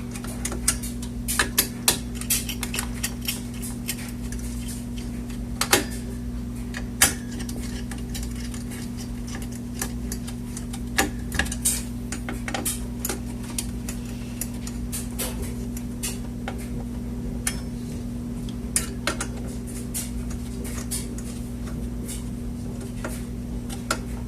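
A screwdriver tightening the screws of a CPU heatsink on a desktop motherboard: irregular small metallic clicks and scrapes, a few louder ones, over a steady low hum.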